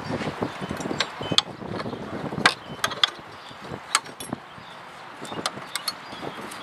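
Irregular sharp metal clicks and clinks as the drive belt is worked off the pulleys and the tensioner and belt-guide brackets of a John Deere LA100 mower deck, with rustling from the handling. The loudest clicks come about two and a half and four seconds in.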